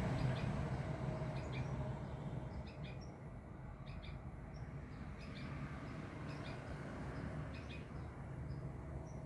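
Small birds giving short, high chirps at irregular intervals, some in quick pairs, over a steady low background rumble.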